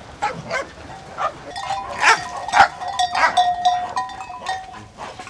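A flock of Merino sheep moving about, with the clanking of their bells and occasional bleats.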